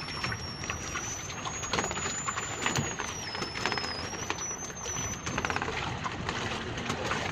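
Irregular knocks and rattles of live fish and a woven bamboo fish trap in a wooden boat's hull, over water and wind noise. A thin high whistling tone rises at the start, holds and wavers, and stops about three-quarters of the way through.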